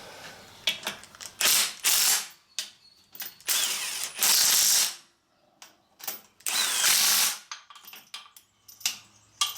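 Ratchet wrench clicking in three short bursts with scattered clicks between, tightening a fastening on the machine that had worked loose and started to wobble.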